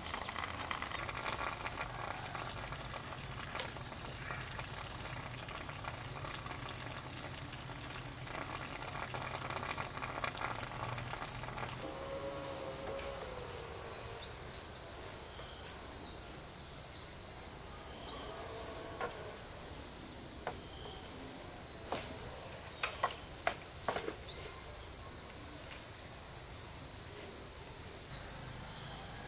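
Steady high-pitched insect chorus of crickets or cicadas, with a short rising chirp heard three times in the second half and a few light knocks near the end.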